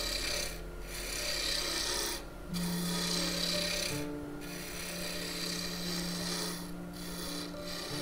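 Spindle roughing gouge cutting a spinning blank of spalted western maple on a wood lathe, rounding it between centers: a rough, rasping scrape that breaks off briefly about five times.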